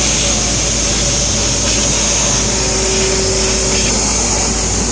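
1 kW EKS Laser ESF-3015GT CNC fiber laser cutting machine running while it cuts thin stainless steel: a loud, steady hiss and whir, with a brief steady whine about halfway through.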